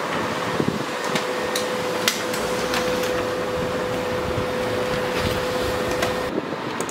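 Canon LBP2900B laser printer running a print job: a steady mechanical hum with a continuous tone and a few light clicks as paper feeds. The tone cuts off suddenly a little before the end.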